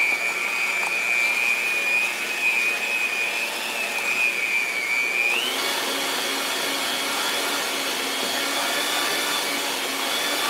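Electric hand mixer running with its beaters in a cup of cream cheese frosting, a steady motor whine. About five seconds in the whine jumps to a higher pitch and holds there, as the mixer goes up to a higher speed.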